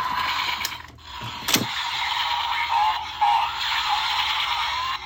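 Small speaker of a Kamen Rider toy transformation belt playing its electronic sound effects, voice and music after the Revolve function is triggered, with sharp plastic clicks in the first couple of seconds.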